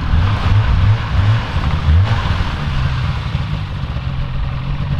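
Snowmobile engine running as the sled is driven slowly over snow, a low hum with the throttle swelling and easing unevenly.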